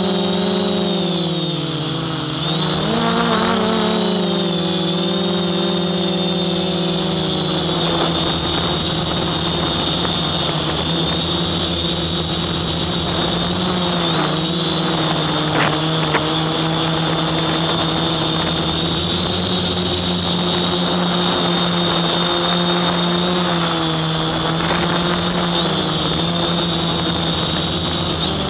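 Quadcopter's brushless motors and propellers, heard from the drone's own onboard camera: a steady buzzing drone with a high whine on top. The pitch dips about two seconds in and climbs back a second later, then holds steady.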